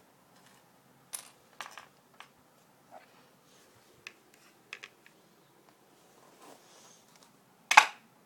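Small plastic and cardboard toy airport pieces being handled: scattered light clicks and taps, with one louder sharp sound near the end.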